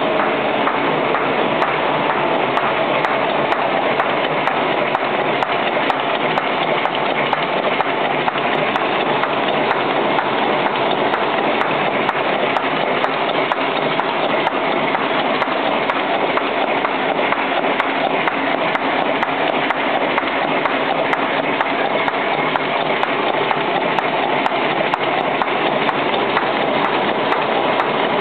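XTJ-400 envelope flap gluing machine running: a steady, dense mechanical clatter that holds at the same level throughout.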